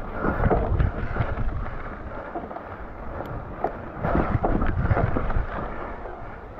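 Electric mountain bike rattling and knocking over a rocky trail, under a low rumble of wind on the microphone, louder about half a second in and again from about four seconds in.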